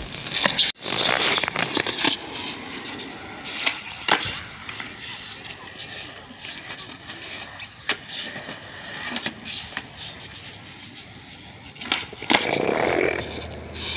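Skateboard on hard 52 mm Bones STF urethane wheels rolling over concrete, with several sharp clacks as the board and trucks strike the ground.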